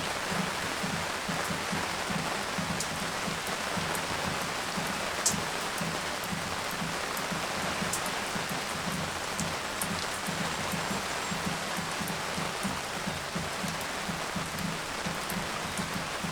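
Steady spring rain shower falling on garden surfaces: a dense, even patter with scattered sharp individual drips and splashes, one louder drop about five seconds in.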